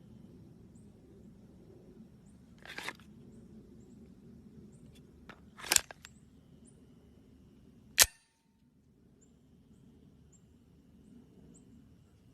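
Handling sounds of a Glock 17 pistol: a short clack about three seconds in, a louder clack near six seconds, and a single sharp click, the loudest, about eight seconds in.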